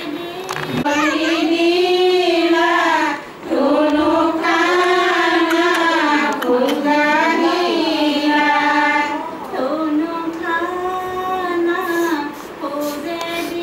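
High female voices singing a slow, drawn-out melody with long held, wavering notes, the phrases broken by short pauses for breath.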